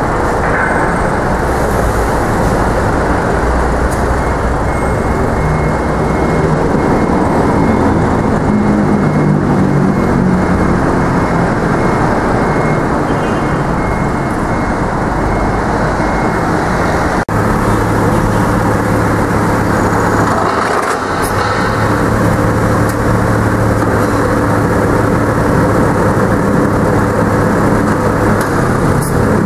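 Engine of a truck-mounted aerial platform (manlift) running steadily while it drives the boom hydraulics. About halfway through the sound breaks off abruptly and a steadier, lower engine hum carries on.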